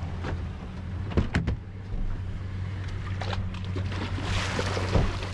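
Toyota Tundra pickup's engine running low and steady while reversing through shallow water on a boat ramp, with water washing around the tyres. A couple of sharp knocks come a little over a second in.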